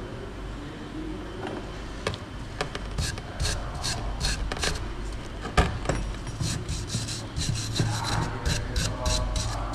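Hand scraping of hard deposits off the aluminium rim of a truck air-brake chamber, in quick repeated strokes that pick up after about three seconds. The deposits on this edge are letting the chamber lose air.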